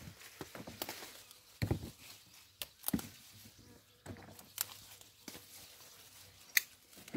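Ripe red peppers being picked by hand: irregular snaps and rustles at the plants and dull knocks as peppers are dropped into a plastic tub, a few of them sharper and louder than the rest.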